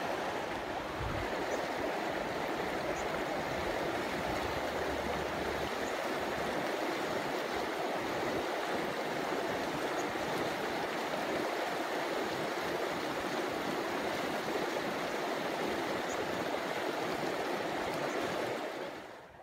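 Shallow, fast mountain stream rushing over rocks: a steady rush of water that fades out near the end.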